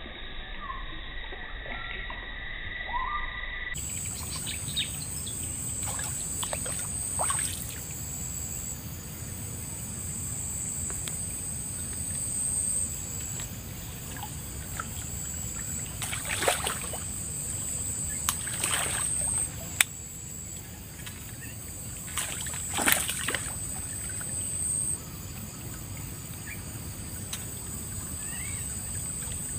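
Outdoor ambience beside a small stream: a steady high-pitched buzz that breaks off and resumes, over a low noise bed, with three short, louder noisy sounds a little past the middle.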